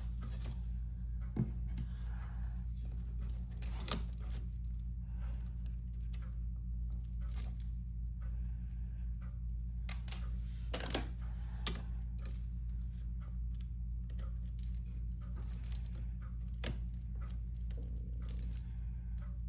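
Scattered small clicks, taps and scrapes of hands handling a laptop's internal parts, over a steady low hum.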